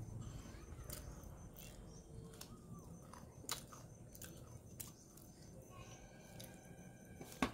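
Quiet eating sounds: chewing a mouthful of rice with a few sharp mouth clicks at irregular intervals, and fingers mixing rice on a metal plate, over a low steady hum.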